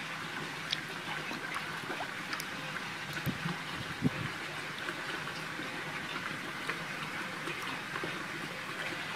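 Pond water trickling steadily, with a few small splashes as koi break the surface. The sharpest splash comes about four seconds in.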